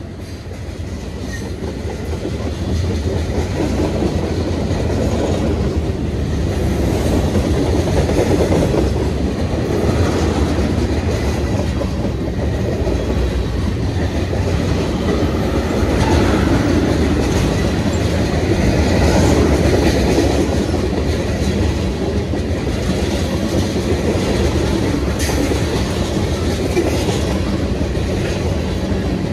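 Mixed freight train rolling past, its wheels clattering over the rail joints with a steady low rumble. It grows louder over the first few seconds, then holds.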